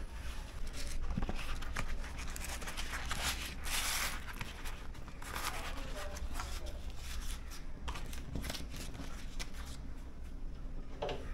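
Banana leaf rustling and crinkling in short bursts as it is handled and folded into a packet by hand.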